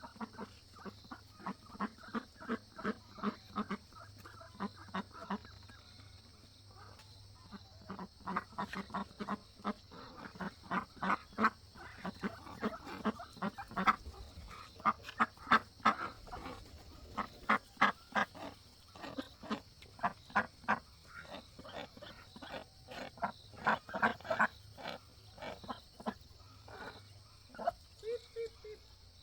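A flock of domestic ducks quacking, many short calls in quick, irregular succession and often overlapping, busiest around the middle.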